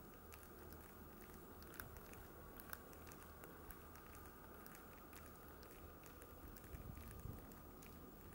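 Faint, irregular crackling and ticking of thin new lake ice and slush shifting at the water's edge. A low rumble comes in near the end.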